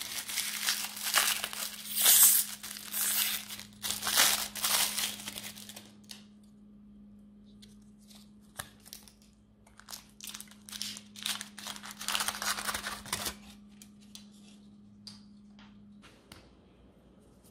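Cellophane and foil wrapper of a cone-shaped chocolate crinkling and tearing as it is peeled off by hand. The crinkling is loud and continuous for the first few seconds, then becomes softer, scattered rustles that fade out about two-thirds of the way in.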